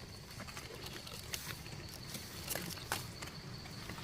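Faint rustling of dry leaf litter on a forest floor, with a few scattered light clicks and snaps.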